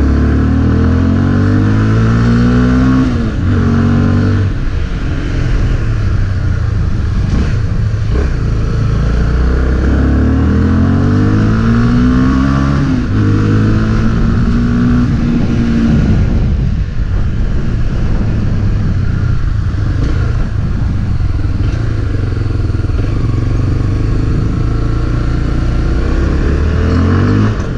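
Honda CB300's single-cylinder four-stroke engine under way on a ride, accelerating in two spells, its pitch climbing and falling back at each gear change, then running more steadily at cruising speed.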